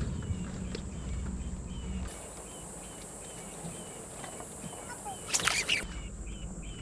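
A bird calling outdoors, a short chirp repeated about twice a second, with a brief noisy rustle or splash about five seconds in.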